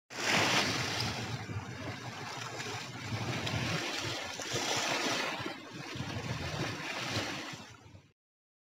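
Small sea waves washing in surges over broken concrete slabs on an eroded shoreline, with wind rumbling on the microphone. It cuts off abruptly about eight seconds in.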